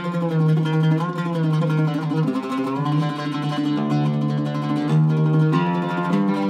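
Iraqi-style Zaryab oud with a cedar top, played solo with a plectrum in rapid tremolo picking. The notes slide and waver in the first second or so, then settle into held notes that change every second or two.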